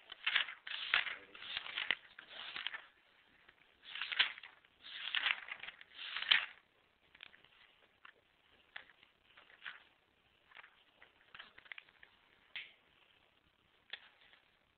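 Scratchy strokes of writing, several in quick succession over the first six seconds or so, then only scattered light clicks and taps.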